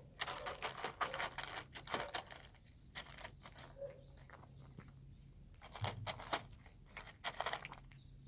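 A street cat eating, with quick clusters of crunching bites, each run lasting a second or two, and a pause in the middle.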